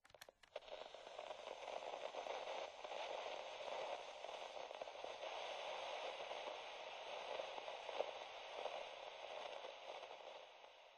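Crackling static hiss like radio interference, opening with a few sharp clicks and fading out near the end.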